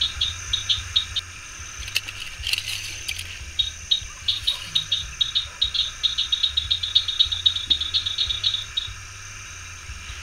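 Night insects: rows of short, high cricket-like chirps that come faster from about four seconds in and stop near nine seconds, over a steady high insect drone. A brief rustle about two and a half seconds in.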